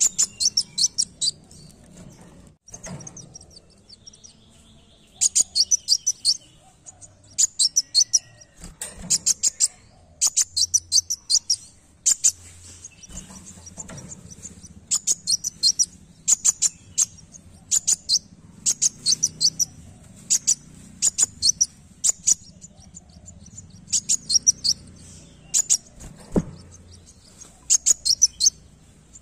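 Kolibri wulung sunbird singing: short bursts of very high, rapid twittering, repeated every second or two with a few brief pauses.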